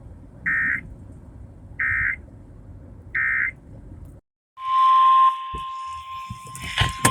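Three short digital warbling beeps, about 1.3 seconds apart: the EAS end-of-message data bursts closing the alert. After an abrupt cut, a new recording begins with a loud burst of noise and a steady high tone that keeps going.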